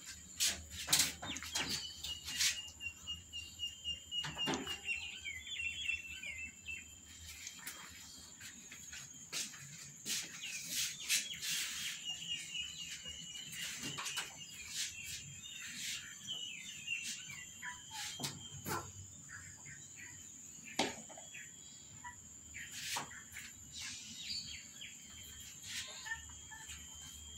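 A bird chirping in long rapid trills, twice, over a steady high whine, with scattered sharp clicks and taps throughout.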